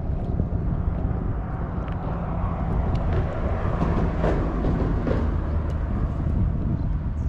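Steady low wind rumble on the microphone. Brief splashing and rustling about four to five seconds in, as a hooked bass is brought to the boat.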